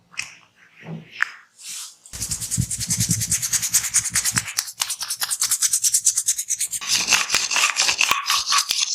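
Hands rubbing in a fast massage stroke, about ten scratchy strokes a second, starting about two seconds in after a few soft, scattered touches.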